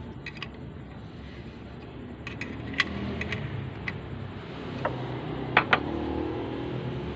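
About ten sharp metallic clicks and clinks from a 10 mm wrench being fitted to and turned on the oil drain bolt of an AC vacuum pump, the loudest two close together near the end, over a steady low background rumble.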